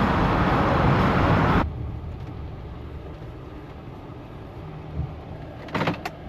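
Steady loud rushing noise that cuts off abruptly about one and a half seconds in, giving way to a quieter low rumble of vehicle traffic, with a couple of short clicks near the end.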